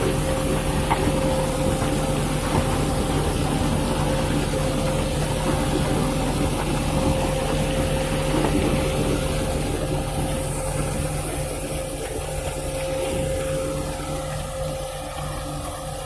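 Diesel engine of a self-loading concrete mixer running steadily with a low hum while the drum discharges concrete down the chute. It eases slightly quieter about twelve seconds in.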